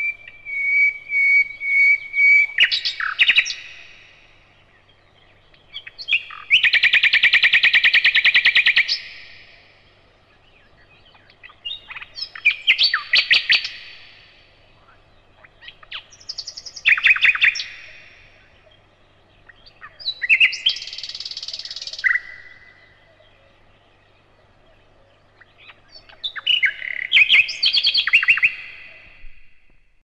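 Common nightingale singing in separate phrases a few seconds apart, each a run of rapid repeated notes and whistles, the loudest a fast, dense trill about seven seconds in.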